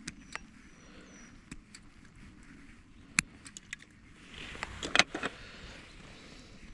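Scattered sharp clicks and light rattles, with a denser, louder burst of them about four to five seconds in.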